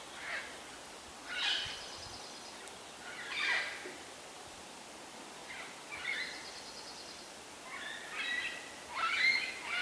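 Nanday parakeets calling: a series of short, harsh calls every second or two, coming faster and overlapping near the end.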